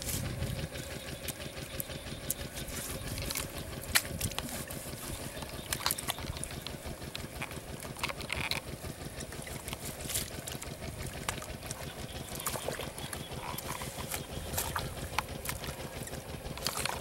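A hoe chopping into and scraping wet mud and clay: irregular dull knocks every second or two over a steady low rumble.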